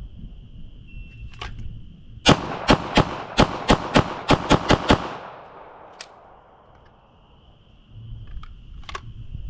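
A shot-timer beep, then a rapid string of about ten pistol shots from a Sig P320 carry-optics handgun fired in roughly two and a half seconds, each crack followed by a short echo; the timer reads 4.03 seconds.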